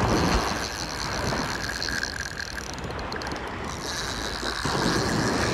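Spinning reel being cranked to bring in line on a hooked fish, over the wash of surf and wind on the microphone.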